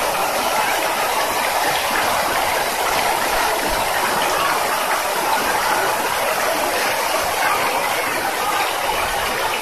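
Water jets of an ornamental fountain splashing steadily into its pool.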